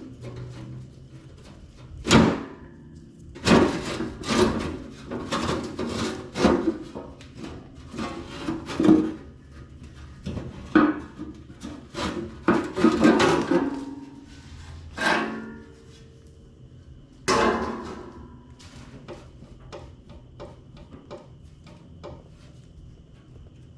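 Irregular knocks, clunks and scraping of metal parts and tools being handled while an old Lincoln AC180S welder's case is taken apart, busiest over the first two thirds and thinning to light ticks near the end.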